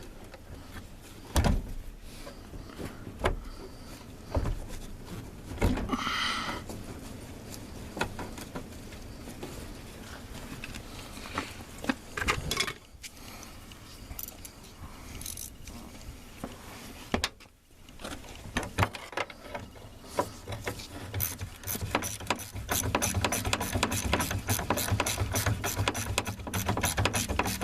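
Tools and metal parts clinking and knocking while the lower door hinge of a pickup is worked on, then, for the last several seconds, a ratchet wrench clicking rapidly as the hinge bolts are turned.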